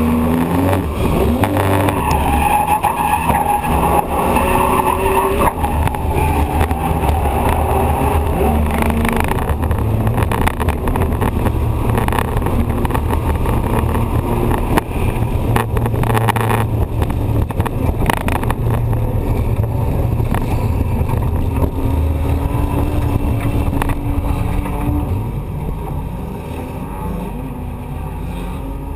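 Drift car's engine running as the car drives, its pitch rising and falling with the throttle, then dropping lower and quieter about 25 seconds in as the car slows.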